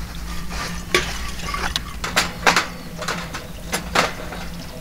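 Sharp metallic clinks and knocks of stainless camp cookware and gear being handled, about half a dozen scattered through a few seconds, one leaving a brief ring, over a steady low hum.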